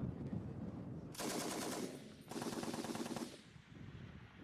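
M60 7.62 mm machine gun firing two short bursts of full-auto fire, each about a second long, with a brief pause between them.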